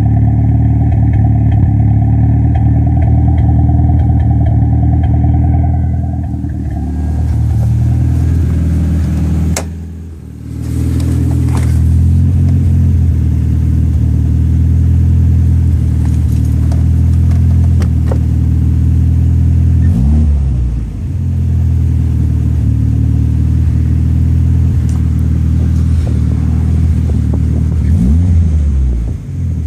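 Toyota Celica GT-Four ST205's 3S-GTE turbocharged four-cylinder engine running with a misfire. The engine speed changes briefly a few times: a dip about a third of the way in, and quick rises and falls near two-thirds and near the end.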